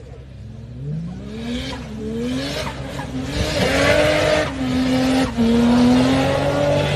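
4WD SUV engine revving hard, its pitch climbing from about a second in and surging again in the second half, with the noise of tyres spinning and tearing through wet grass and dirt.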